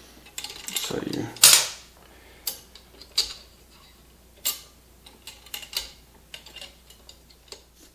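Steel wheel spokes clinking against each other and against the hub and rim as they are laced into a dirt-bike wheel hub. The clicks are sharp and irregular, with the loudest clatter about one and a half seconds in.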